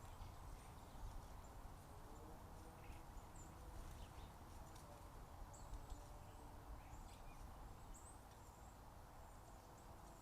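Faint outdoor background at a bird feeder, with a few short, high bird chirps and light taps spread through it.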